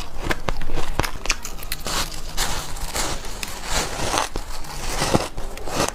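Soft shaved ice being bitten and chewed close to the microphone: a run of dense, crackling crunches with many sharp crackles.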